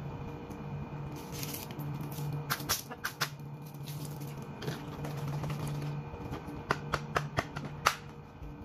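Close-up eating sounds: chewing and the handling of a plastic milk tea cup and straw, heard as short runs of sharp clicks and taps, over a low hum that keeps coming and going.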